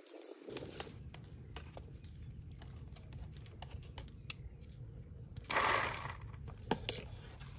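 A metal wire strainer clinks and scrapes against an aluminium pot with many light ticks, over a low steady rumble. About five and a half seconds in there is a short splash as chicken feet drop into a basin of water.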